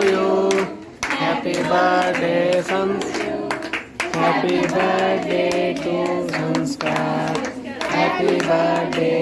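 A group of voices singing a birthday song, with hands clapping along. The singing comes in short phrases of held notes with brief breaks between them.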